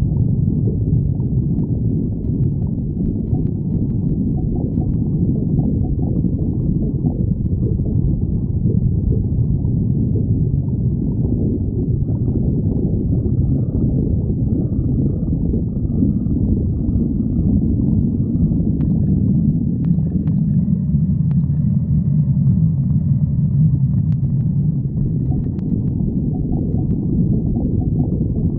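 Stomach growling: a continuous low rumble, with faint higher tones coming in over its second half.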